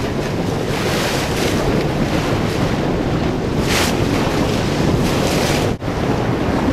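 Wind buffeting the microphone over choppy open water, with the wash of waves. A few short hissing surges come and go, and the sound briefly cuts out for an instant near the end.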